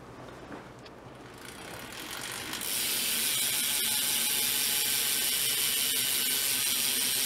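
Freewheeling BMX rear hub (Demolition Rogue) buzzing as the wheel is spun by hand: the pawls click so fast they merge into a steady ratcheting buzz, building up over the first couple of seconds and then holding steady.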